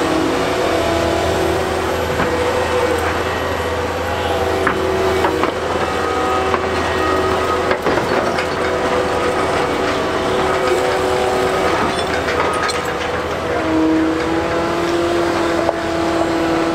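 Heavy equipment running: a steady diesel drone with several held whining tones that shift pitch now and then, and scattered metallic clanks.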